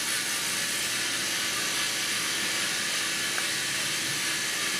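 LEGO Mindstorms NXT robot's two drive motors running at a steady power, giving a steady high-pitched whirring hiss from the motor gearing as the robot drives across the mat.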